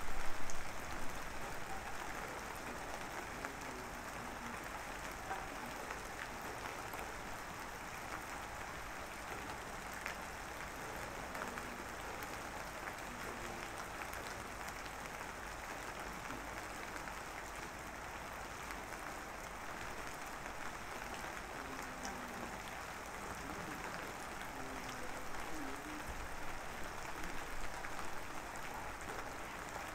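A steady, even hiss of noise, with a brief louder burst right at the start.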